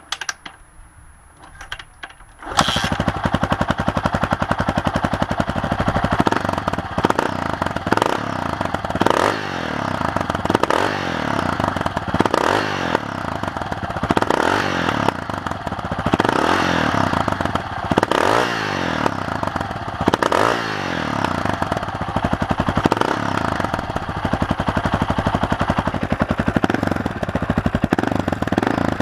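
Honda XR650R's single-cylinder four-stroke engine running through an FMF aftermarket muffler. It starts up about two and a half seconds in, then idles with repeated throttle blips every second or two.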